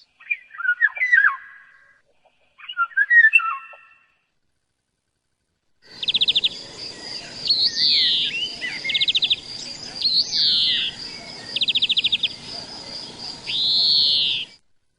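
Birds singing: at first short whistled phrases of quick pitch slurs, then after a pause of silence a second recording with rapid buzzy trills alternating with loud arched whistles over a thin high steady tone.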